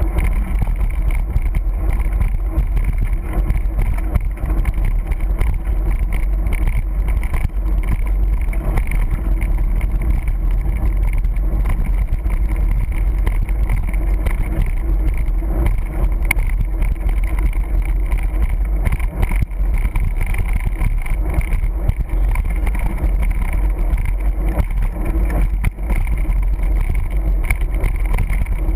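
Steady wind rushing over the microphone of a camera carried on a moving mountain bike, mixed with the rumble of the 29er's tyres rolling over rough, patched asphalt.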